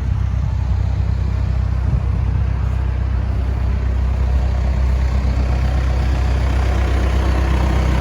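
Case 580 Super N WT backhoe loader's diesel engine idling steadily.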